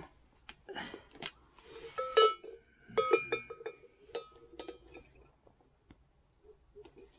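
Metal livestock bell on a leather collar clanking several times with short ringing notes, mostly in the middle, as it is worked with pliers. Small clicks and rustles of the pliers and strap come before and after.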